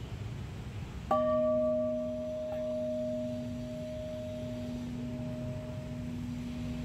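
A bell made from a bomb casing struck once with a swung wooden log, then ringing on with a deep, long-lasting tone that slowly fades; a second light knock follows about a second and a half later.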